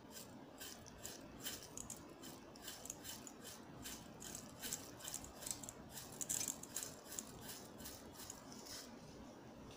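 Whole sesame seeds being sprinkled over a seasoned radish and cucumber salad in a stainless steel bowl: a run of light, irregular ticks and rattles, busiest around the middle.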